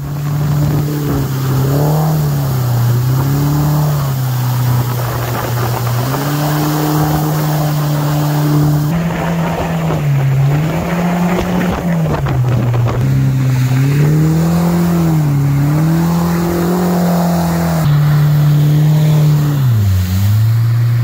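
Mercury outboard motor driving a water-jet boat at speed, its pitch dropping and climbing again several times as the throttle is eased and opened, over a steady hiss.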